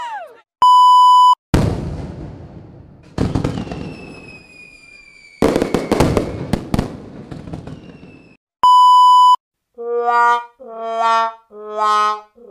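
Edited sound effects: a loud steady beep, then a series of explosion-like blasts that each die away, a second beep, and near the end four short electronic notes.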